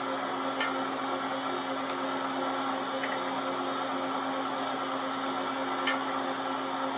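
Metal lathe running under power while a single-point tool cuts an 18-threads-per-inch thread in a steel stud: a steady motor-and-gear whir with a few faint ticks. The steel, which the machinist finds was not annealed properly, is leaving a rough, torn thread.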